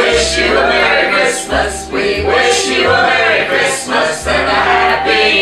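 Music: a group of voices singing together over instruments with a bass line that changes note about once a second.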